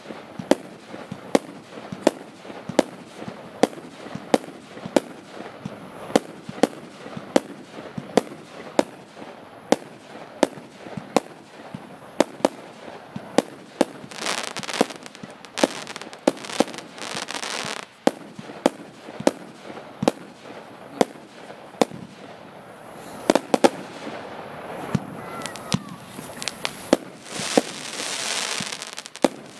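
A consumer firework battery (F2 cake) firing shot after shot at a steady pace of about two a second. Two longer rushing bursts of noise come around the middle and near the end.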